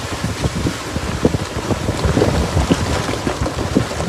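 Jeep Wrangler JK driving slowly up a rough dirt trail: a low steady rumble with many irregular knocks and rattles.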